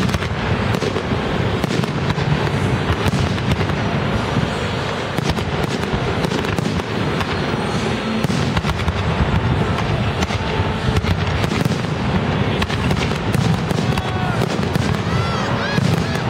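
A dense barrage of firework aerial shells and comets launching and bursting: continuous rapid bangs and crackling with no let-up. A few whistle-like glides come in near the end.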